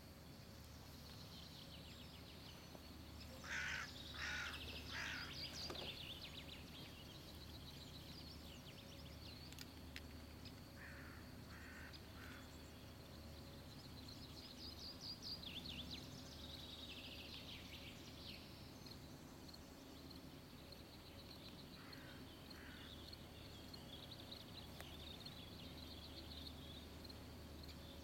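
Birds singing and calling, with a few louder, harsher calls of three or four notes about four, eleven and twenty-two seconds in, over a faint steady low hum.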